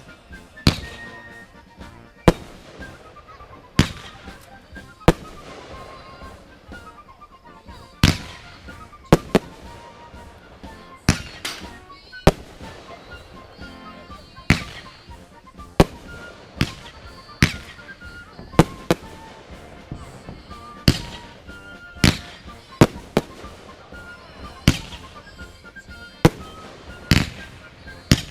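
Fireworks exploding: about two dozen sharp bangs at uneven gaps of roughly a second, each trailing off in a short echo.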